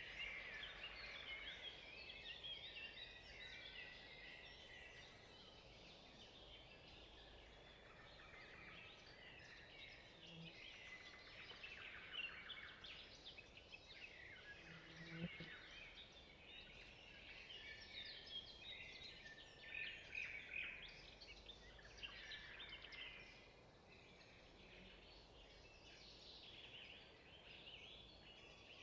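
Near silence, with faint small birds chirping in clusters throughout.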